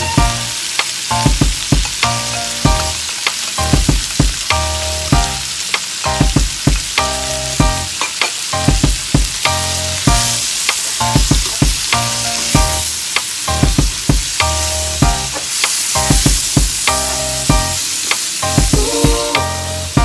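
Yard-long beans and pork sizzling in a hot wok while a dark sauce is poured in, with a spatula scraping and knocking against the wok over and over as the food is stir-fried.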